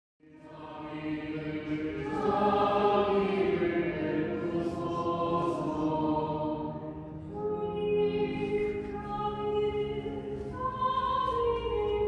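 Background music: a choir singing slow, long-held notes, fading in at the start.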